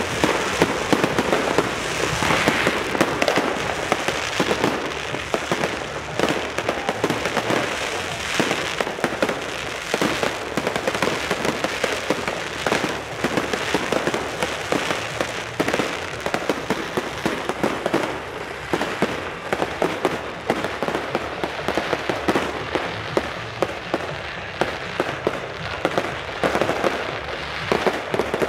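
Fireworks going off without a break: many aerial shells and rockets bursting at once, a dense run of overlapping bangs and crackles.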